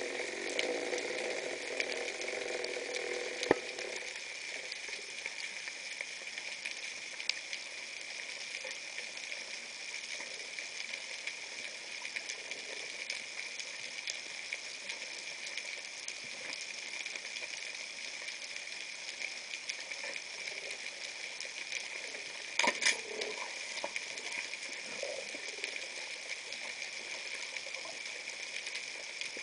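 Steady underwater crackling hiss on the reef, with a sharp click about three and a half seconds in and a short cluster of louder clicks a few seconds before the end.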